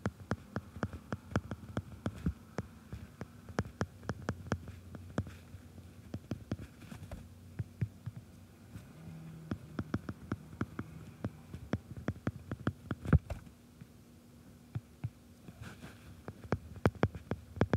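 A stylus tapping and clicking on a tablet's glass screen while writing and entering numbers: many sharp, irregular clicks, several a second, over a low steady hum.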